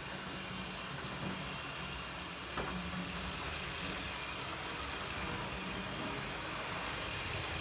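Bachmann Jupiter 4-4-0 model steam locomotive's motor and drive shaft running at a slow creep along the track: a steady faint whirr and hiss, with one small click about two and a half seconds in.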